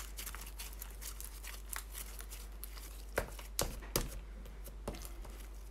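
Melted, sticky slime being kneaded and stretched by hand partway through re-activation: faint sticky clicks and pops, a few louder clicks a little past halfway.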